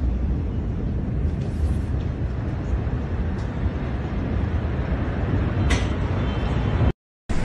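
Steady low rumble of outdoor noise with wind on a phone microphone, with a brief rustle about six seconds in and a sudden cut to silence near the end.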